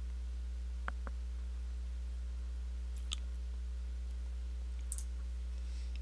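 Steady low electrical hum with a few faint clicks, four in all, scattered through it.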